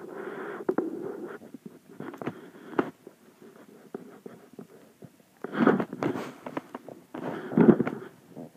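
Close handling noise as a small die-cast Matchbox toy car is turned over in the fingers: scattered light clicks and soft rustling, with two louder rustling scrapes in the second half.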